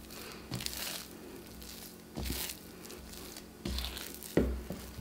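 Hands kneading wet, high-hydration sourdough dough in a ceramic bowl: a handful of short, irregular sticky squishing sounds as the dough is pressed and folded over.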